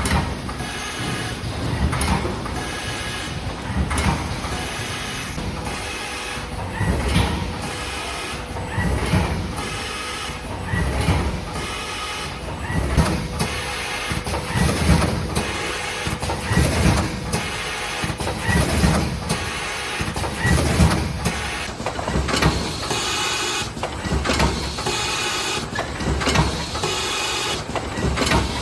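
Ten-lane liquid sachet packaging machine running, with a rhythmic cycle of low thumps and sharp clicks repeating about every two seconds as it fills, seals and cuts rows of sachets.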